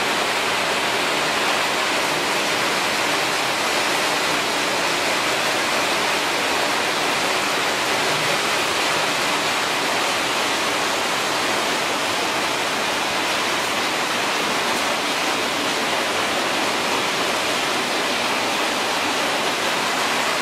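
PET bottle washing line running: its conveyors and machines give a steady, even rushing noise with no rhythm or distinct knocks.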